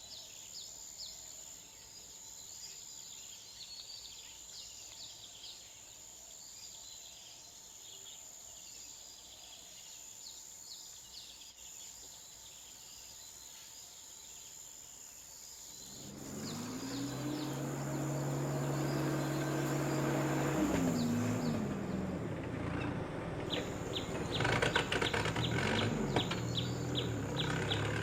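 Birds and insects chirping faintly with a steady high insect tone. About halfway through, a louder low humming sound with a pitch comes in, holds steady for a few seconds, then drops in pitch and carries on under more chirping.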